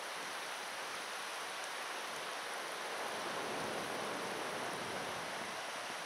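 River water rushing over limestone ledges and rapids, a steady, unbroken hiss.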